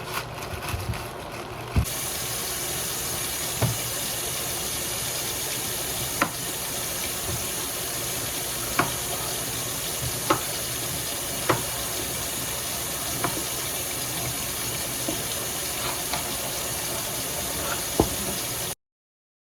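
Kitchen tap running steadily into a sink, with a sharp knock every second or two. It starts about two seconds in and cuts off suddenly near the end.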